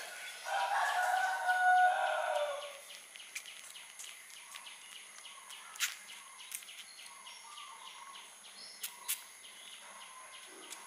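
A rooster crows once: a single long call with a held pitch that falls away at the end, about half a second to three seconds in. After it there are only faint scattered clicks and soft chirps.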